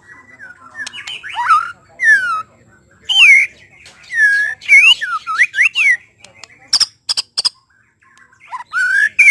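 White-rumped shama singing: loud whistled phrases of rising and falling notes, broken about seven seconds in by a few sharp clicks, then a short pause before the whistling starts again near the end.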